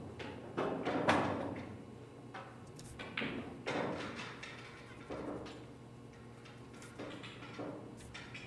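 Scattered sharp clacks and knocks of pool balls and cues in a pool hall, the loudest about a second in and a few more spread through, each with a short ring, over a steady low hum.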